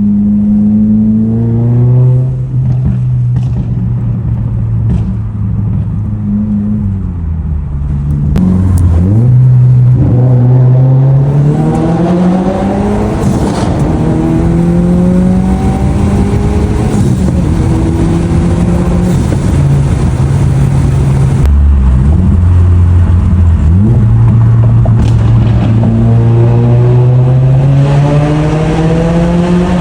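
Straight-piped, tuned Subaru WRX (VB) turbocharged flat-four accelerating hard at wide-open throttle. The engine note climbs in pitch and drops back briefly at each gear change, several times over.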